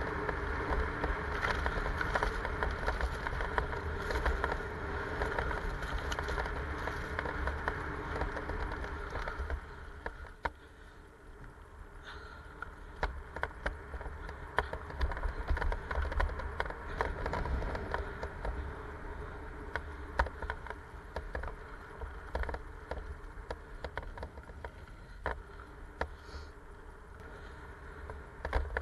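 Mountain bike ridden fast down a dirt forest trail: tyres rolling on the ground with wind rumbling on the microphone. A steady rush for about the first ten seconds, then quieter with many sharp clicks and rattles from the bike over the rough, stony ground.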